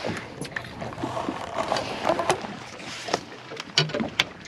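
Scattered clicks and light knocks of fishing tackle being handled aboard a boat, over a steady wash of wind and water.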